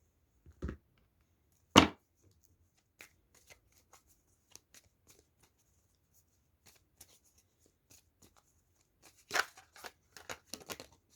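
Tarot cards being shuffled and handled: a sharp card slap about two seconds in, scattered faint flicks of cards, and a denser burst of shuffling near the end.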